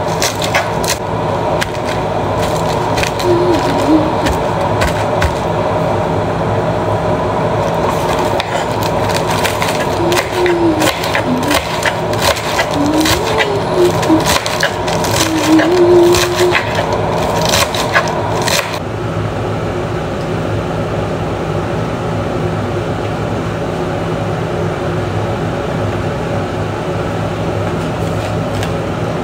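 Knife chopping salad vegetables on a cutting board, in quick irregular knocks over a steady hum. The chopping stops suddenly about two-thirds of the way through, leaving only the hum.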